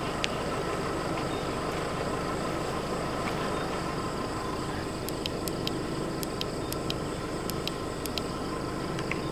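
Steady outdoor night background noise, with a scatter of faint, quick high ticks in the second half.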